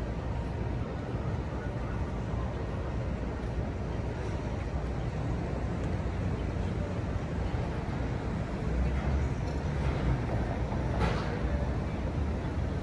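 Steady low rumble of vehicle and road noise, a little louder for a couple of seconds near the end, with one short sharp sound about eleven seconds in.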